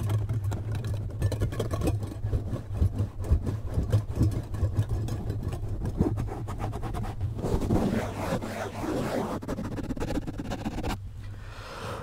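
Fingers scratching and squeezing a foam windscreen directly on a microphone: dense close crackling scratches over a low rumble. About seven seconds in it turns to a softer, hissier rubbing, which drops away near the end.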